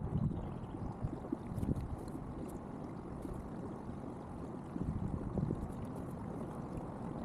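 Water lapping and gurgling against a kayak hull as it moves on the water, a steady rumbling wash with small splashes and knocks.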